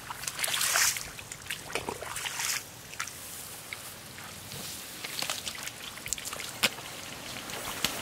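Wading through shallow muddy paddy water: irregular sloshing and trickling of water with rice plants brushed aside, the busiest splashing in the first second and again at about two seconds, and scattered sharp clicks throughout.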